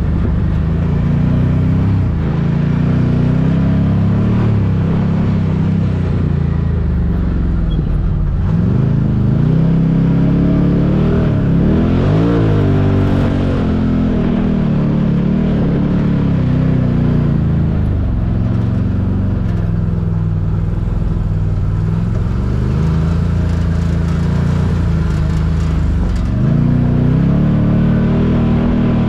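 Can-Am Maverick side-by-side's 1000cc Rotax V-twin engine under way, revving up and easing off again and again, its pitch climbing highest about twelve seconds in.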